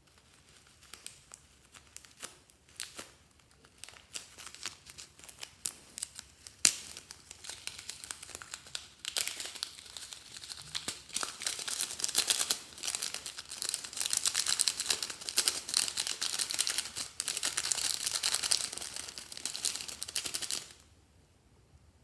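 Clear slime being squished and stretched by hand, giving a few scattered pops at first, then dense, fast crackling that stops suddenly near the end.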